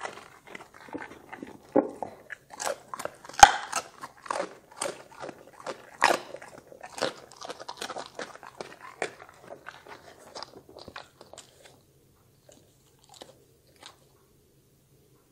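A Doberman crunching and chewing a piece of vegetable with loud, rapid bites. The bites thin out to a few last chews partway through, then stop.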